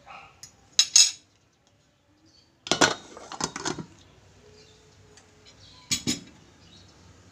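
Rice cooker's metal lid clinking and clattering against its metal inner pot as it is handled and set back on: a couple of sharp clinks about a second in, a longer rattle of clatter around three seconds, and two more knocks about six seconds in.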